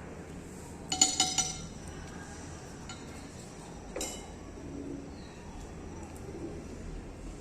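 A utensil clinking against a dish, about four quick ringing clinks about a second in, then a single knock about four seconds in, while the dressing is added to the ceviche.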